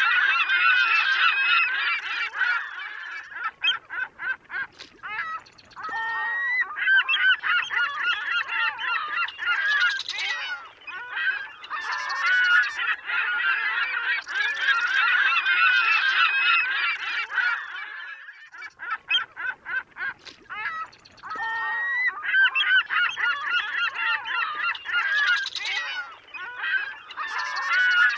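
A flock of birds calling at once, many short goose-like calls overlapping in a dense chorus. The chorus thins to scattered single calls briefly about four seconds in and again around twenty seconds.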